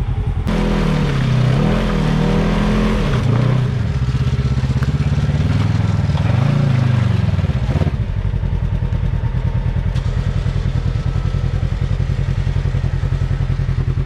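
Off-road side-by-side engine revving up and down several times as the machine struggles to climb over an obstacle, with a loud rush of noise alongside the first revs. About eight seconds in the revving stops and the engine settles to steady, even running.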